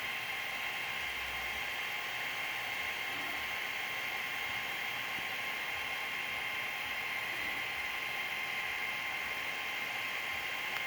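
Creality Ender-3 3D printer running a print: a steady whir from its fans with a constant high whine over it.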